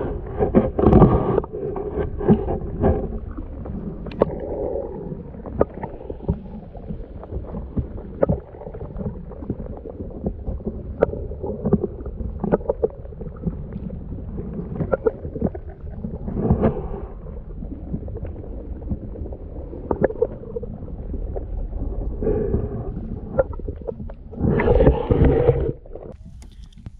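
Water sloshing and gurgling around a fishing kayak, with repeated small knocks on the hull and a few louder splashy stretches, over a steady low rumble of wind on the microphone.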